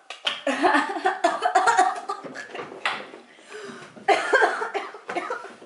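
Two women coughing and letting out wordless pained cries from the burn of extremely spicy ramen, their hands over their mouths.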